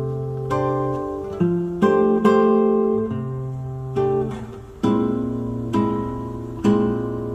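Recorded music played back through Dali Helicon 300 mk2 loudspeakers and picked up by a phone microphone: an instrumental passage of plucked guitar chords, struck every half second to a second and left to ring out, with no voice.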